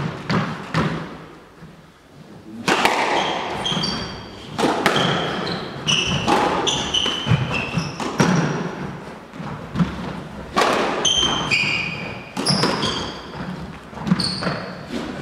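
Squash rally: the ball struck by rackets and knocking off the walls, mixed with short high squeaks of players' shoes on the hardwood court floor. The knocks ease off briefly about two seconds in, then the rally runs on.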